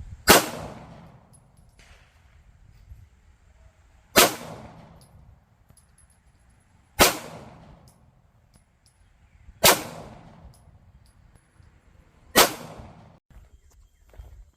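Five slow, aimed 9mm shots from a Glock 19 Gen 5 pistol, one every two to three seconds, each sharp crack trailing off over about a second.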